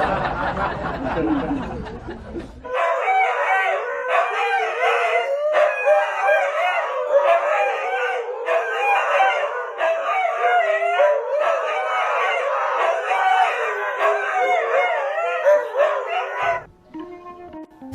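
Animal cries with wavering, sliding pitch, several overlapping at once, starting a few seconds in and stopping shortly before the end.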